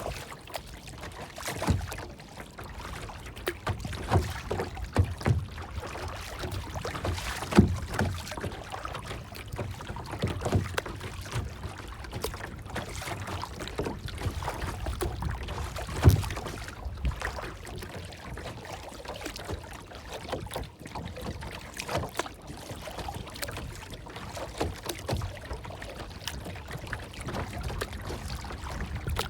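Water lapping and splashing in irregular small splashes over a low steady rumble, with a few louder splashes.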